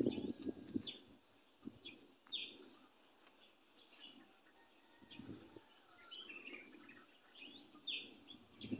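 Small birds chirping in the background: faint, scattered short high chirps.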